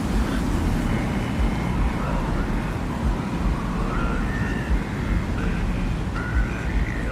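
Desert ambient soundscape: a steady deep rumble, like wind over open sand, with faint high wavering tones drifting in during the second half.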